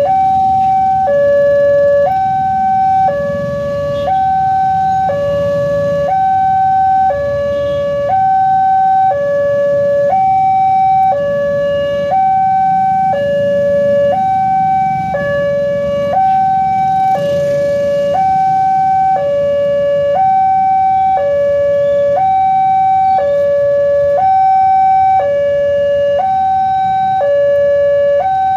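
Indonesian railway level-crossing warning alarm sounding from its horn speakers: the common high-pitched electronic two-tone alarm, alternating steadily between a higher and a lower tone, each held about a second, set to a slightly slower tempo. A low rumble of road traffic runs underneath.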